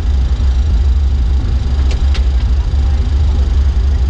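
Steady deep rumble inside a Boeing 737-300's cockpit as the airliner rolls along the runway after landing, with two short sharp clicks about two seconds in.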